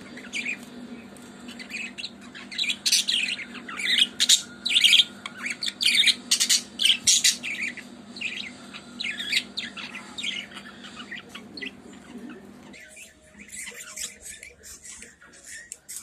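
Budgerigars chirping and chattering: a busy run of short, high calls and squawks, thickest in the first half and thinning out near the end.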